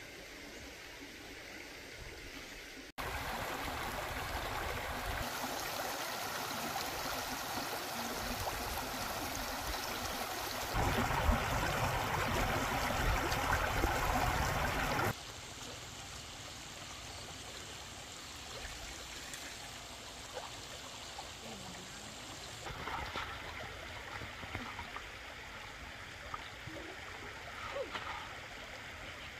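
Stream water flowing, its loudness jumping abruptly from shot to shot, loudest for a few seconds in the middle. A few faint short knocks sound near the end.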